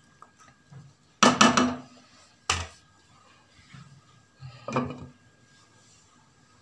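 Wooden spatula knocking and scraping against a nonstick frying pan: a quick run of knocks a little over a second in and one sharp knock at about two and a half seconds. About five seconds in, a glass lid clatters down onto the pan.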